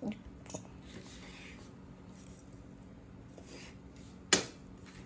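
Cutlery clicking on a plate during a meal: a few light clicks and one sharp clink a little over four seconds in.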